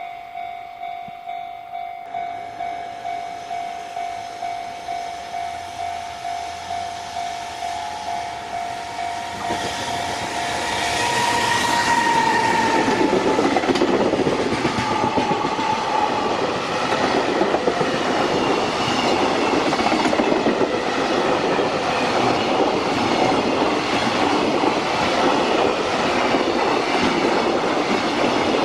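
Level-crossing warning bell ringing in a steady pulsing rhythm, then about ten seconds in a freight train arrives and runs past, its wagon wheels clattering over the rail joints and drowning out the bell.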